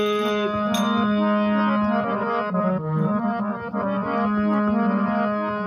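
Instrumental interlude of a Rajasthani devotional song (desi bhajan): an electronic keyboard plays a melody of held notes over a steady drone, with a single sharp percussive hit about a second in.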